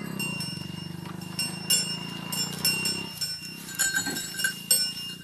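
A small motorcycle engine running steadily as it moves off, stopping abruptly about three seconds in. Scattered clicks and short high chirps follow.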